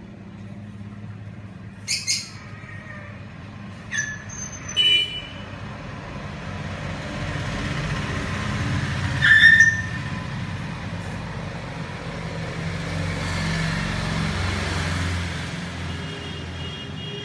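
Background road traffic: a steady low engine rumble that swells as a vehicle passes through the middle and later part. A few short, high chirps or squeaks stand out, the loudest about halfway through.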